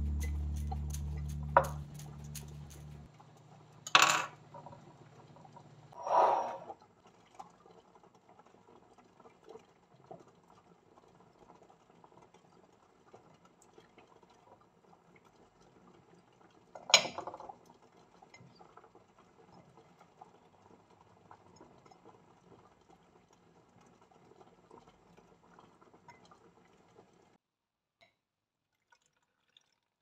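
Background music fades out, then small cucumbers are packed by hand into glass jars: a few sharp knocks and clinks against the glass, the loudest about four seconds in and again past the middle, over faint handling noise.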